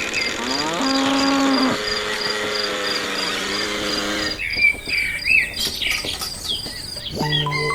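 Farmyard animal sounds: a cow mooing, with birds chirping in the middle, and a second low call starting near the end, over a steady pulsing insect-like chirp.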